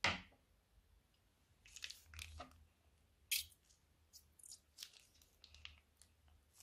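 A sharp scissor snip right at the start as the piping bag's tip is cut through. Then the thin plastic piping bag crinkles and crackles in short, uneven rustles as it is squeezed empty and crumpled up by hand.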